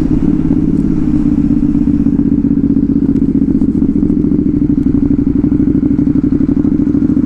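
Motorcycle engine with a loud aftermarket exhaust idling steadily, a fast even exhaust pulse holding one pitch.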